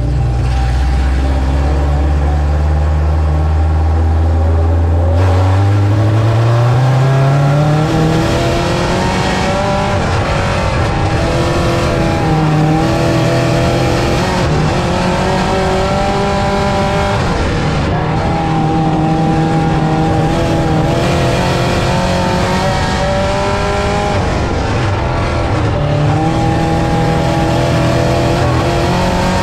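Dirt-track race car engines running. A steady low engine note for the first five seconds rises sharply as the cars accelerate, then several engine notes rise and fall together at racing speed.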